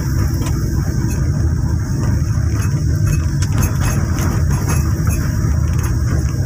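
Steady low rumble of vehicle engine and road noise while driving in traffic.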